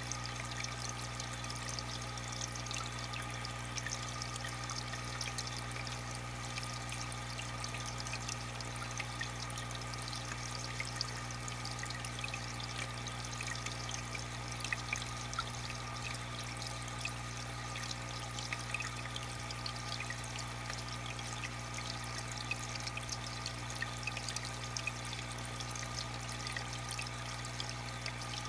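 Aquarium water pouring and trickling steadily, with many small splashes, over a steady low hum.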